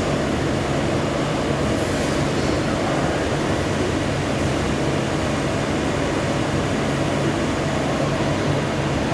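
CNC lathe running steadily, a constant machine noise with a low hum and no change in level.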